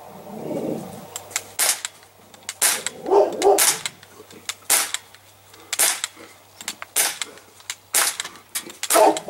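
Crosman C11 CO2 semi-automatic BB pistol firing a string of shots, about one a second, each a sharp snap.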